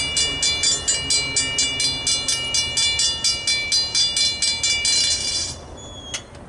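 Mechanical railroad crossing bell ringing with rapid, even strokes, about four a second, each leaving a ringing metallic tone. It stops about five and a half seconds in as the crossing gates reach upright.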